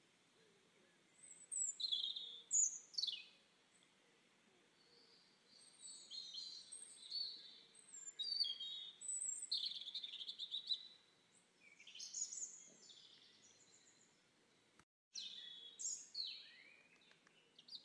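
Small birds chirping and singing: scattered short, high chirps and trills, cut off by a brief silence about fifteen seconds in before the calls resume.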